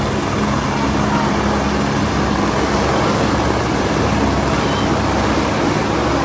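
Helicopter engine and rotor noise, a steady loud drone with a constant low hum.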